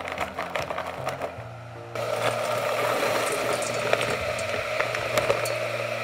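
Soft background music with a few light clicks; about two seconds in, food starts sizzling in a hot pot and keeps up a steady hiss.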